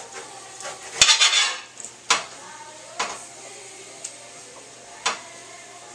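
Knife cutting fresh pineapple on a cutting board: a clattering burst about a second in, then single sharp knocks of the blade on the board about once a second.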